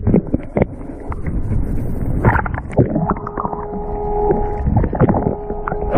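Water sloshing and knocking around a fishing kayak, with a rumble of wind and water. A steady hum with a few held tones comes in about three seconds in.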